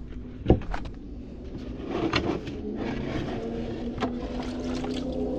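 Plastic bait bucket handled: a sharp knock about half a second in, then water running out of the tipped bucket onto a wooden table from about two seconds in, with a few clicks.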